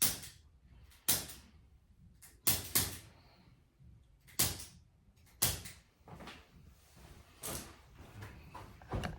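Activator adjusting instrument, a spring-loaded chiropractic tool, firing in sharp single clicks on a tight spot. About eight clicks at uneven spacing, two of them close together about two and a half seconds in.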